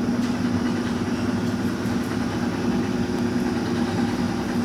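LeBlond Regal engine lathe running under power with the carriage on power feed towards the chuck, its gearing giving a steady hum with a constant low tone.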